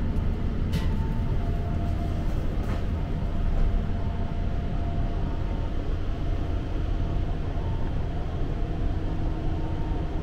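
Inside a Seibu 10000 series New Red Arrow limited express car running at speed: a steady low rumble from the wheels and running gear, with faint humming tones above it. Two brief clicks come in the first three seconds.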